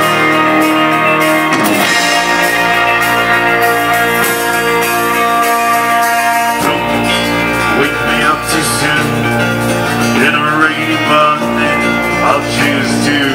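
A live band playing, with electric guitar over sustained chords.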